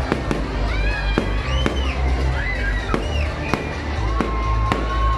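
Aerial fireworks going off in a quick run of sharp bangs and crackles, about a dozen reports in five seconds, over a steady low rumble with music underneath.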